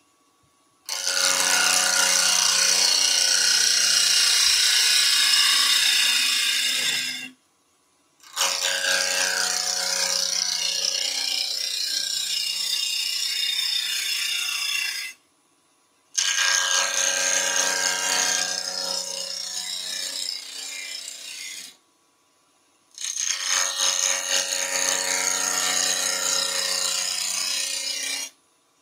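A gouge cutting into spinning wood on a woodturning lathe while hollowing a small bowl: a dense, steady scraping hiss of shavings being peeled off, over the lathe's low hum. It comes in four long stretches broken by three short, completely silent gaps.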